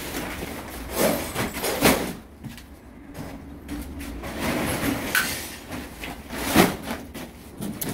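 Broken concrete and floor-tile rubble knocking and scraping together as an underfloor heating pipe is tugged up out of a demolished floor, with several sharp knocks.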